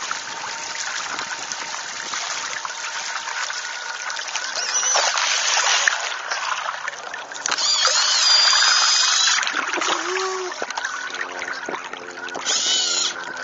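Water rushing and splashing close past the hull of a Mini40 RC hydrofoil multihull under sail, with a few louder splashy surges. From about halfway through, a steady low hum with several pitches runs underneath.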